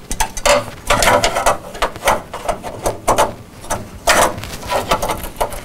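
A run of irregular clicks, knocks and scrapes from handling metal parts: Aqua Computer poweradjust units with their front panel being fitted into place in a PC case.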